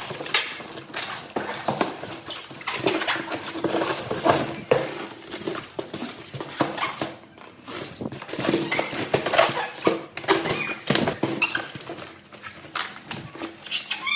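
Irregular rustling, crackling and clicking of packaging and plastic parts being handled.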